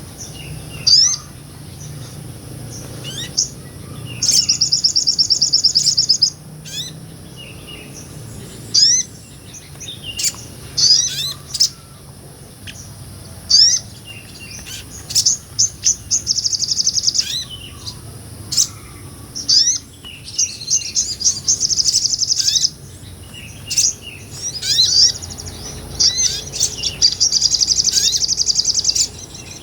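Sogon, a small nectar-eating sunbird, singing loudly: high-pitched sharp chirps and quick sweeps, broken by rapid trills that each last about two seconds.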